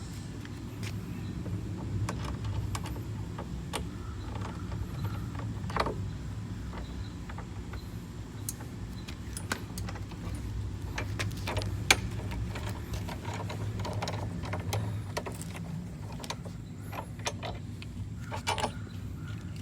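Scattered clicks, taps and light knocks of handling, a couple of sharper knocks among them, over a steady low hum.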